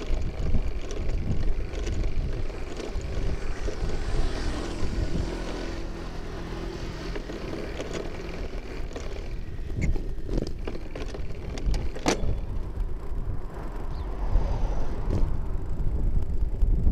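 Wind and road rumble on a camera riding on a bicycle, with a motor vehicle's engine passing about four to six seconds in and a few sharp knocks, the sharpest about twelve seconds in.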